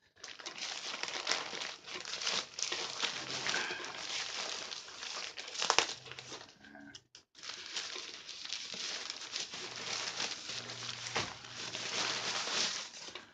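Crinkling and rustling of a packaged dome tent and its wrapping being handled and pulled out of its bag, with one sharp, loud crinkle just before a brief pause about seven seconds in.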